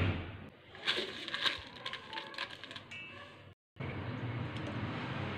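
Quick run of clicks and patter as soaked rice is tipped from a bowl into a rice cooker's inner pot of broth. After a short break, a steady low hum.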